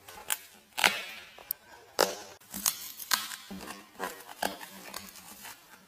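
Small cardboard shipping box being opened by hand: tape and cardboard flaps tearing and rustling in a series of irregular sharp snaps, the loudest about a second and two seconds in.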